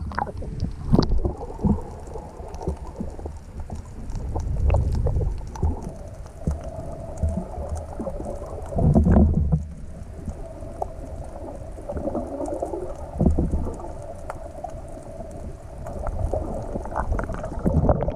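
Underwater sound at a snorkeller's camera: low sloshing rumbles of moving water with a few louder surges, and scattered faint clicks. A steady hum comes in about a third of the way through and fades out near the end.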